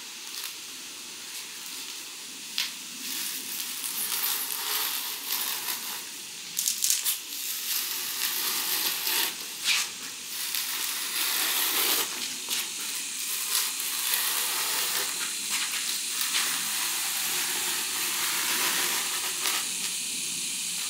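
A blade scoring and scraping across a foil-faced rigid foam insulation board, in scattered scratchy strokes over a steady hiss.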